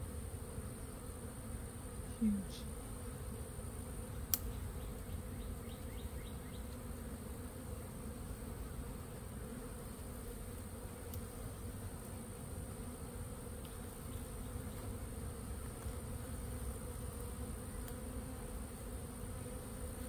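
A large swarm of honey bees clustered on a tree branch, humming as a steady drone of many wings. There is a short, louder low sound about two seconds in and a sharp click a couple of seconds later.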